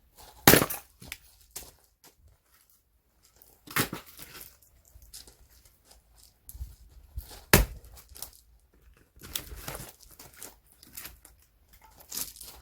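Axe blows splitting firewood logs: about five strikes a few seconds apart, the loudest about half a second in, with the wood cracking and tearing apart.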